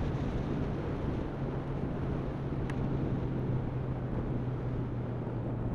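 Motorcycle engine running at a steady cruising speed, a constant low hum under wind and road noise on the microphone, with one faint click partway through.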